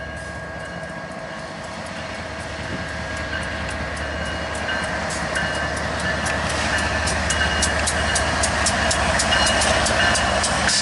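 BNSF GE diesel locomotives running as they pass close by, growing steadily louder, with a high whine coming and going. From about halfway, the wheels click over the rails more and more often.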